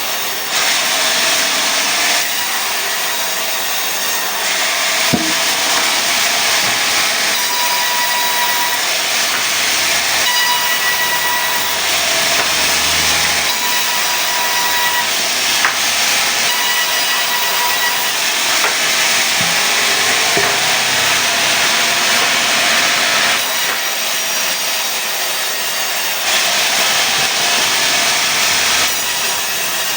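Sawmill saw cutting pine into boards: a loud, steady hissing rasp that swells while the blade is in the wood, from about two seconds in until near the end, with a faint whine coming and going mid-cut and a couple of sharp knocks.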